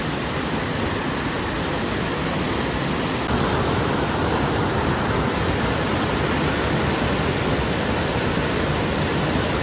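Mountain river rapids rushing over boulders: a steady whitewater rush with no let-up, a little louder from about three seconds in.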